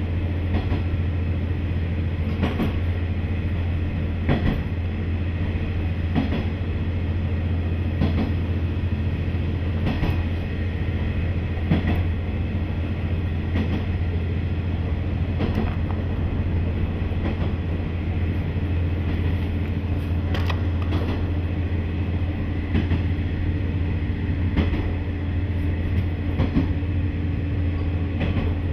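Inside a KiHa 40 diesel railcar under way: the steady low drone of its diesel engine, with the wheels clicking over rail joints about every two seconds.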